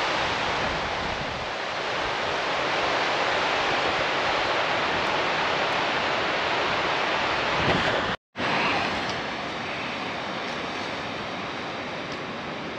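Steady rushing of a fast mountain river running over rocky rapids. It breaks off for a moment about eight seconds in, then carries on slightly quieter.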